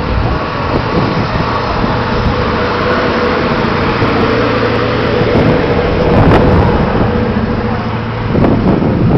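A motor vehicle running, its engine a steady hum that grows a little louder about six seconds in.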